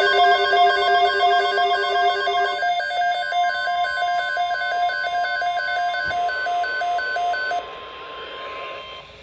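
Electronic emergency-alert tones: a rapid, evenly repeating pattern of alternating beeps at several pitches. The lowest beeps drop out about two and a half seconds in. The rest cut off sharply about seven and a half seconds in, leaving a quieter steady tone.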